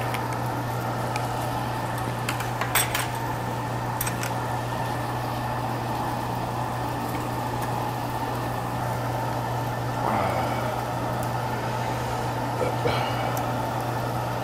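Steady low mechanical hum, with a few sharp clicks of utensils against dishes about three and four seconds in.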